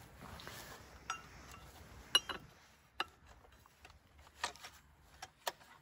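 Light metallic clinks and taps, about half a dozen, the loudest about two seconds in. A steel box wrench is being fitted and knocked against the blade-mount nut and gearhead of a Stihl FS 560 C-EM brushcutter to take off its old metal grass blade.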